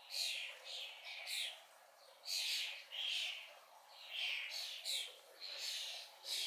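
Common starling fledglings begging for food: harsh, hissing calls repeated about twice a second.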